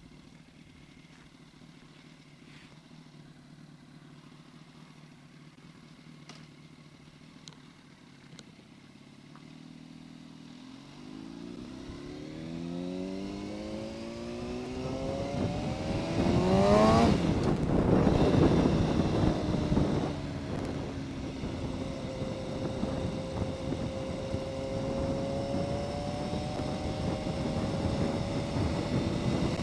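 Yamaha R1 inline-four motorcycle engine running quietly at low revs, then accelerating from about ten seconds in, its pitch climbing. A brief loud burst of noise comes partway through, then the engine settles to a steadier, louder run with rushing noise.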